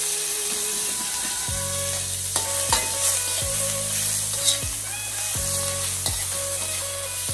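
Sliced pork tenderloin sizzling in hot oil in a wok, with a steady frying hiss. A metal spatula scrapes and clicks against the wok now and then as the meat is stir-fried.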